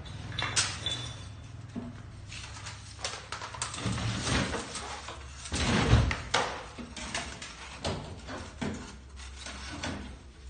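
Irregular knocks, bangs and rattles of scrap refrigerator parts being handled and taken apart, the loudest bang about six seconds in, over a low steady hum.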